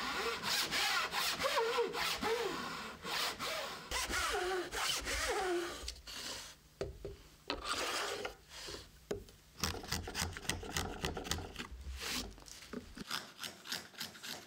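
Japanese hand saw cutting the joint grooves across bundled kumiko wood strips: quick rasping strokes with squeaky tones for about six seconds. After that come sparser sharp clicks and short scrapes of a narrow chisel picking the waste out of the grooves.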